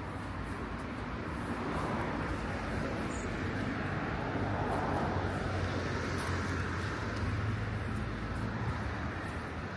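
Road traffic: a car passes, its sound swelling to a peak about midway and then easing off, over a steady low rumble.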